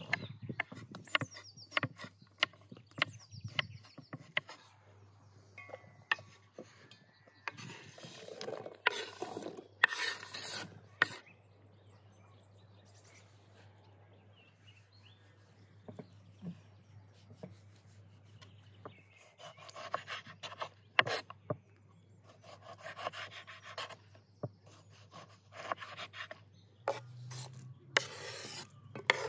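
A kitchen knife chopping cucumber on a wooden cutting board: quick taps at first, then stretches of scraping and rubbing on the board with a quieter pause in the middle. Near the end, diced cucumber and tomato are scraped off the board into a bowl.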